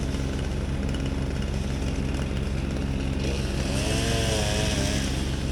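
An engine running steadily at one pitch. About three seconds in, a hiss joins it, and a wavering whine comes and goes.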